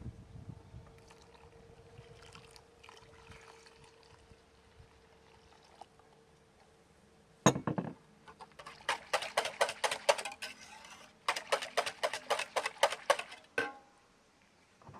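A stainless wire whisk beats batter in an enamel bowl: a rapid clatter of about six strokes a second in two runs, broken briefly in the middle. Before it comes a faint trickle of milk poured from a glass jug, then a single sharp knock.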